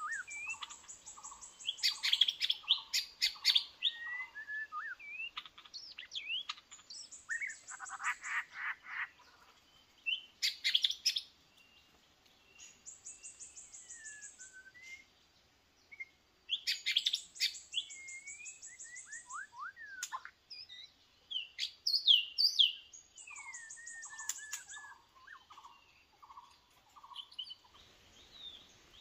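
White-rumped shama singing: a varied run of clear whistles and gliding notes mixed with rapid buzzy trills, in phrases broken by short pauses. Twice, near the start and again late on, a phrase carries a series of about six repeated lower notes.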